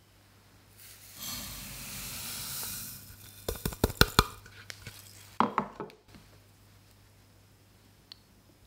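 Granulated sugar poured into a saucepan of water: a soft hissing pour lasting about two seconds, followed by a quick run of sharp clicks and knocks, the loudest part, and a few more knocks about a second later.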